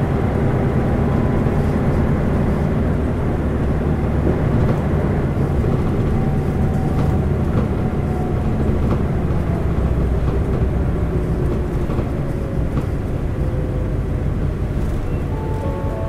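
Isuzu LV city bus with its 8PE1-N V10 diesel engine running under way, heard from inside the cabin: a steady engine drone over road rumble, with the engine's pitch easing down slightly partway through.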